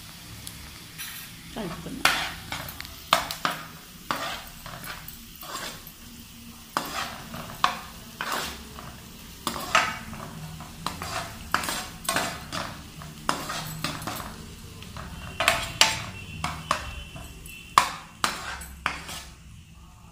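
Steel spoon scraping and clinking against a frying pan as chopped onions, green chillies and turmeric are stirred in hot oil, in irregular strokes about once or twice a second, over a faint sizzle of frying.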